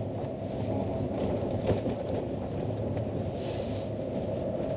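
Vehicle driving over a rough unpaved gravel road: steady engine and tyre rumble with a few scattered knocks and rattles, and a short hiss about three and a half seconds in.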